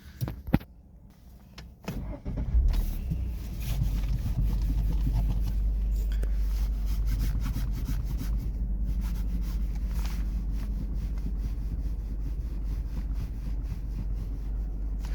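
Chery Tiggo 2 engine started about two seconds in, then idling steadily. A few clicks come before it.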